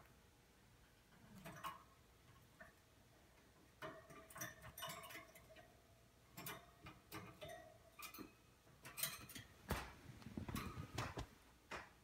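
Faint, irregular clicks and light ticks from a wire birdcage as the cat and budgie on it shift about, thickening in the second half.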